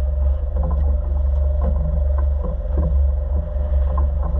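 Boat's Volvo Penta engine running, a heavy steady low rumble with a steady drone over it, scattered light knocks on top.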